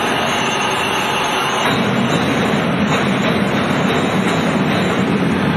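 Overhead crane hoist running steadily while it lowers a heavy lathe worktable on slings, a continuous mechanical rumble that gets fuller about two seconds in.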